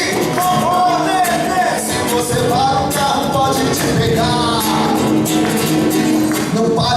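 Rock band playing with singing.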